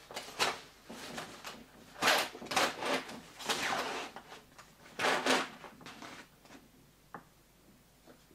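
Fabric curtains being pulled shut in several sliding, scraping strokes, followed by a small click.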